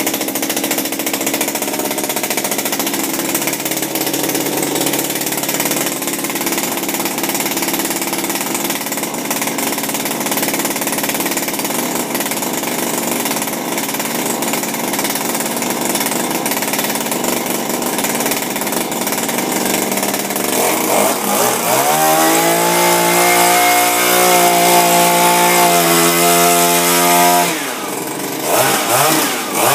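Shindaiwa power broom's small two-stroke engine idling steadily, then revved up about two-thirds of the way in and held at high speed for several seconds. It drops back near the end, then gets a few quick throttle blips while the paddle drum spins.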